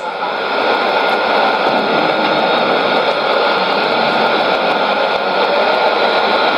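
Steady hiss and static from a Sony ICF-2001D shortwave receiver tuned to an AM broadcast on 11835 kHz, with no speech coming through: the station's signal has faded into the noise.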